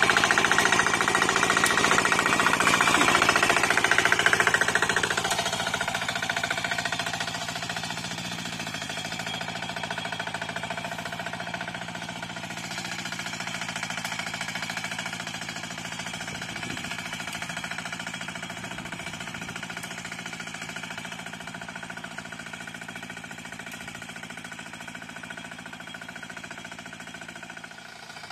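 Single-cylinder diesel engine of a Quick two-wheel hand tractor running steadily with a rapid, even beat, getting quieter from about five seconds in as the tractor moves away.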